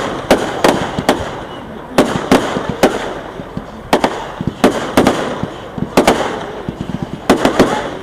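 Fireworks display bangs: about a dozen sharp aerial shell bursts at uneven intervals, each trailing off in a rolling echo, with a quick run of bangs near the end.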